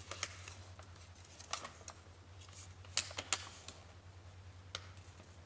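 Crinkling and crackling of a printed L.O.L. Surprise packaging sheet being handled and unfolded, with scattered sharp crackles, the loudest two about three seconds in.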